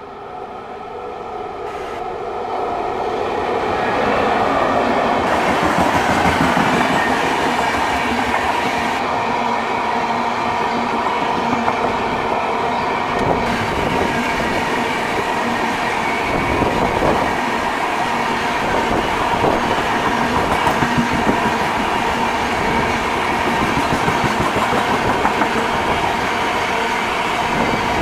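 Indian Railways WAP-7 electric locomotive and its passenger coaches passing close by. It grows louder over the first few seconds as the locomotive nears, then the coaches run past with a steady, rhythmic wheel clatter over the rail joints.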